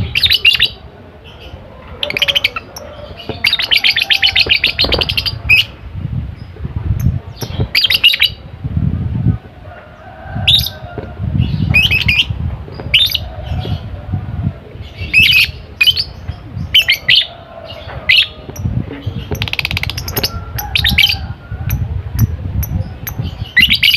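Lovebird chattering in short, shrill chirps and bursts of rapid trills, one trill lasting about two seconds, with brief gaps between the bursts.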